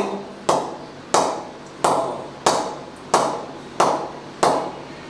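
A leather cricket ball bounced again and again on the face of an SS VA900 Grade 2 English willow bat. There are about seven evenly spaced hits, roughly one every two-thirds of a second, each a sharp knock with a short ring. This is the bat's ping being tested, and the coach calls it beautiful.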